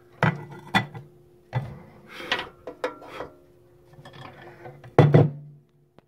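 Ceramic cereal bowl and saucer knocking and clinking as the bowl is taken out of the microwave and set down, with the loudest knocks about five seconds in. A faint steady hum runs underneath.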